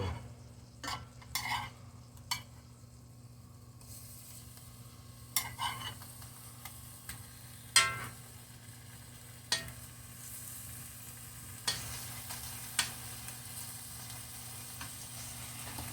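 Hamburger patties frying in a skillet, sizzling steadily, with a metal spatula clacking and scraping against the pan about nine times as they are turned. The sizzle gets louder about four seconds in.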